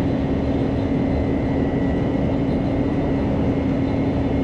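Steady mechanical hum of a large machine running without change: one constant low tone over a dense rumble.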